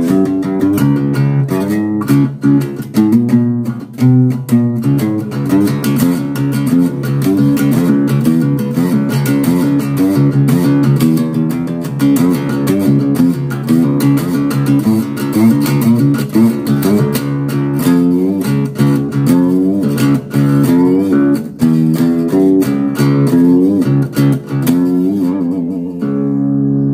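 Guitar-led instrumental music playing continuously, a steady run of plucked guitar notes over a bass line.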